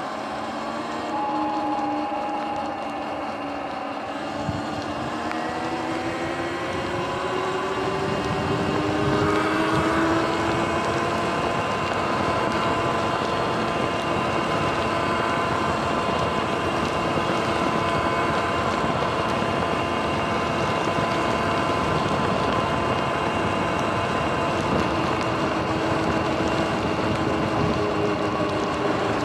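Sur-Ron electric dirt bike's motor and drivetrain whining, rising in pitch as the bike speeds up over the first several seconds, then holding a steady pitch at cruising speed, over tyre and wind noise on wet pavement.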